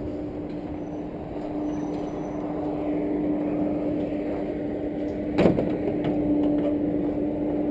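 A vehicle engine idling steadily with a constant hum, and a single sharp knock about five and a half seconds in.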